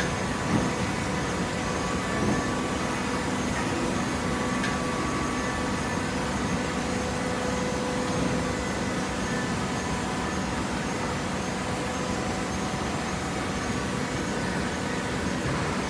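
Hydraulic baler running: the steady hum of its motor and pump, with a few light knocks in the first few seconds.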